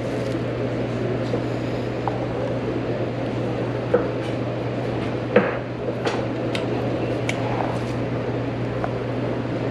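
Serving tongs clicking and knocking against a salad tray and a plate as chopped romaine lettuce is served, a handful of sharp clicks over a steady background hum.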